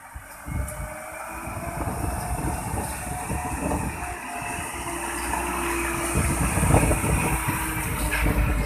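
Isuzu dump truck's diesel engine running as the truck drives up and passes close by, growing louder as it comes alongside.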